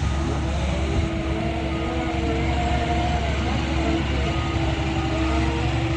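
Doosan DX140W wheel excavator working: the diesel engine drones steadily under load while the hydraulics whine, wavering in pitch. Short high beeps sound now and then.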